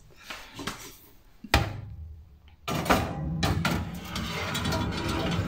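A metal baking tray of cookies going into an open, preheated oven: a sharp knock about a second and a half in, then a steady rushing noise that starts suddenly about halfway through and keeps on.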